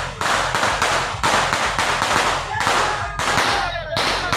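A string of firecrackers going off in a rapid, unbroken run of loud cracks.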